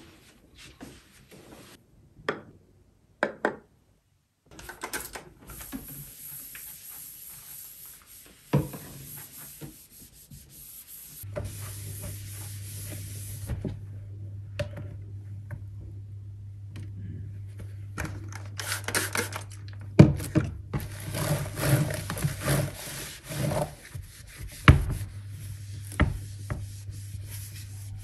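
Microfiber cloth rubbing and wiping over surfaces, the lids and screen of laptops among them, with a few sharp knocks and taps as the machines are handled. A steady low hum runs under the second half.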